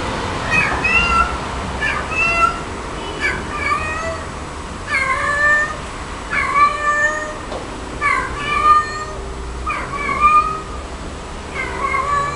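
Cat meowing over and over, about one short call a second.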